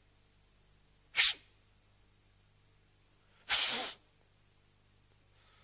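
A man blows two sharp puffs of breath through his lips: a short one about a second in, and a longer, softer one past three and a half seconds.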